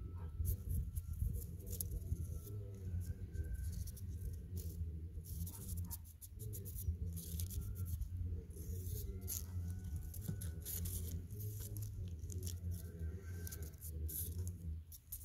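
Background music with a steady low bass layer, over scattered sharp crackles and clicks.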